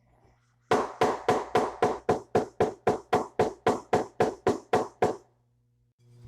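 A quick, even run of about seventeen sharp knocks, some four a second, lasting about four and a half seconds: the scrapped oil pump being knocked to shake loose its stuck pressure relief valve.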